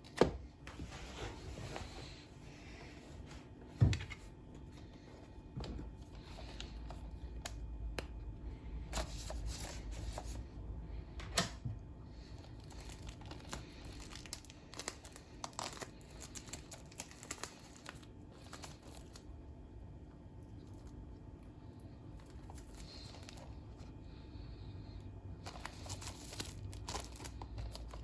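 Blu-ray box set packaging being handled: plastic and card crinkling and rustling, with scattered clicks and two sharp knocks, about four and eleven seconds in.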